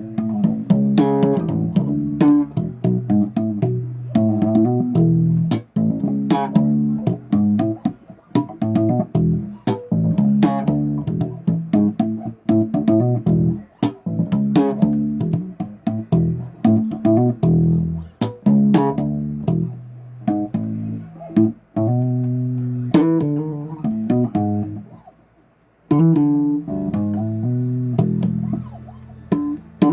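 Bass guitar played solo: a riff of short plucked notes with sharp string attacks, broken by a brief pause about five seconds before the end.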